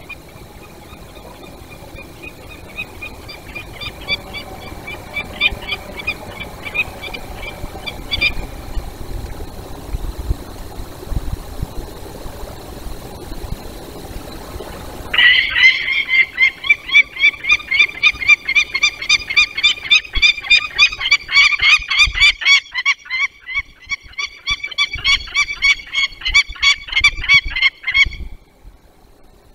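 Peregrine falcon alarm call: a rapid, repeated kek-kek-kek chatter, faint a few seconds in, then loud and unbroken from about halfway, stopping abruptly near the end.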